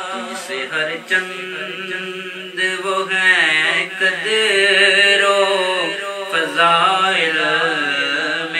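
A solo voice sings an Urdu naat in long, wavering, drawn-out notes over a steady low drone.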